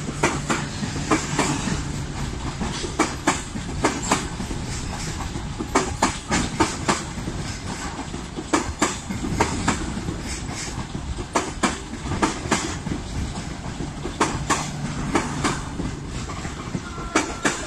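Long-distance passenger train carriages rolling past, their wheels clacking sharply and irregularly over rail joints over a steady rumble.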